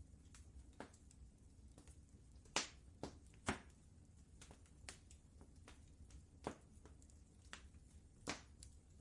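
Wood fire crackling, with irregular sharp pops, three of them louder than the rest, over a faint low rumble.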